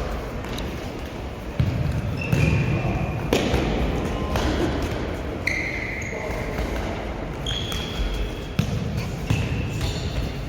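Futsal ball being kicked and bouncing on an indoor court: repeated thuds, with several short high-pitched squeaks in between, in a large echoing hall.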